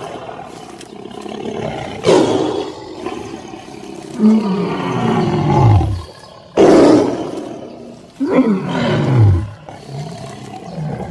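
An animal roaring: two long roars, each starting loud and sliding down in pitch toward its end.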